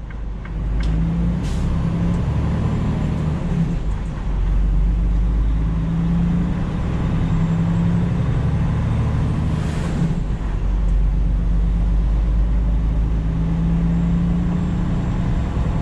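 Freightliner Cascadia semi truck's diesel engine and road noise heard from inside the cab while cruising, a steady low drone whose note comes and goes. About ten seconds in a brief rushing noise swells and fades as an oncoming vehicle passes.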